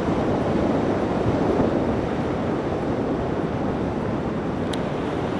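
Steady rush of wind buffeting the microphone from the airflow of a hang glider in flight.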